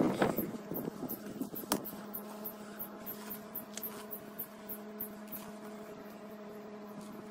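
Steady low mechanical hum, with one sharp click about two seconds in and faint, even high-pitched ticking throughout.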